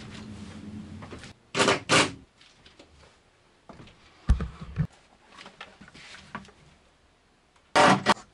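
A cordless drill runs steadily for about a second, driving a screw into a wall panel. It is followed by knocks and thumps from the panel and tools being handled, with a loud knock near the end.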